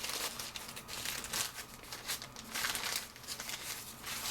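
Packaging crinkling and rustling in irregular bursts as a camera is handled and unwrapped from its box wrapping.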